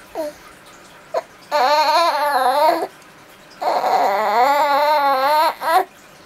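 A baby's voice making two long, wavering, sing-song sounds, each over a second long, with a few short squeaks around them.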